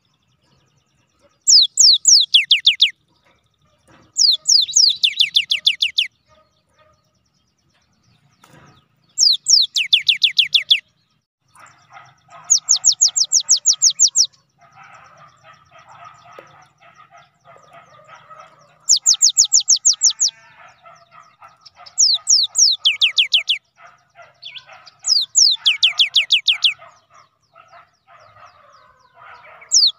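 Cinereous tit (gelatik batu) singing in loud bursts of rapid whistled notes, each note a quick downward sweep, about seven bursts a few seconds apart. From about twelve seconds in, a fainter chattering runs underneath.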